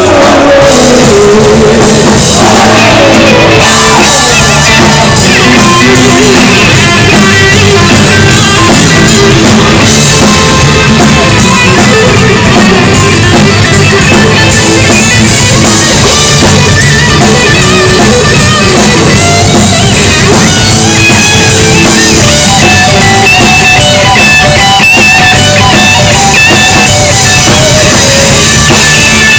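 Live rock band playing: electric guitars and bass over a drum kit, recorded very loud.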